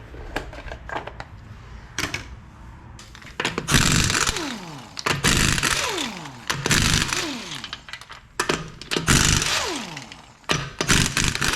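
Impact wrench run in about five bursts, each ending in a falling whine as the motor spins down, after a few light clicks of tools being handled. It is loosening the fasteners to get the worn front wheel bearing out.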